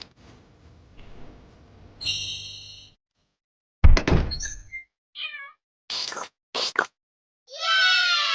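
Cartoon sound effects: a short buzzy tone, a loud thump about four seconds in, a few short chirps and two quick swishes, then a long cat meow falling in pitch near the end.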